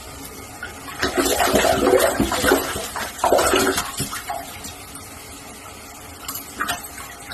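Water sloshing and splashing, loudest between about one and four seconds in, then quieter with a few knocks near the end.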